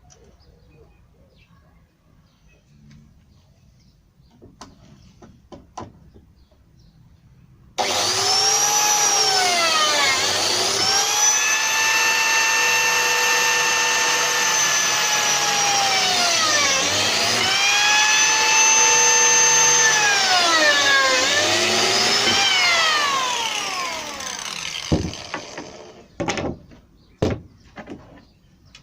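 Plunge track saw cutting 18 mm plywood. The motor starts suddenly about eight seconds in, and its whine sags in pitch three times as the blade is loaded in the cut. It winds down about fifteen seconds later, and a few knocks follow.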